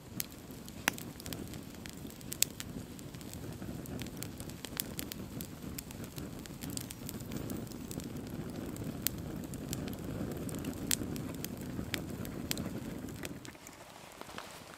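Campfire of dry sticks and logs burning, the flames making a steady low rush with frequent sharp crackles and pops of the wood. The rushing drops away about a second before the end, leaving quieter crackling.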